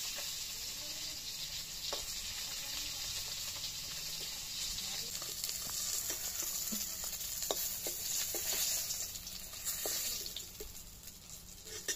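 Fish pieces sizzling in hot oil in a kadai, with a metal spatula scraping and clicking against the pan as the fried pieces are lifted out. The sizzle dies down near the end.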